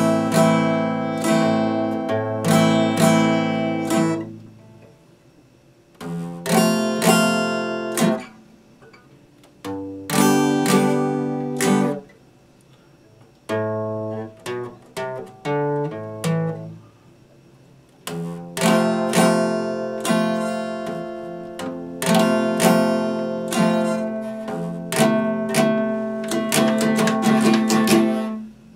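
Epiphone acoustic guitar strummed in chords, in short phrases with pauses of a second or two between them. Near the end comes a run of quick repeated strums, and then the playing stops.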